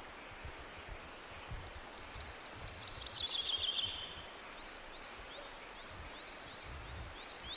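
A bird singing: series of short rising notes that speed up into a fast trill, twice, over a low rumble.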